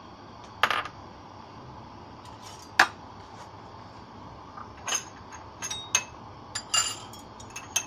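Scattered clinks and knocks of kitchen utensils, a spoon against glassware and a bottle, several of them ringing briefly. The loudest knock comes about three seconds in. A steady low hiss from the gas burner and heating water sits underneath.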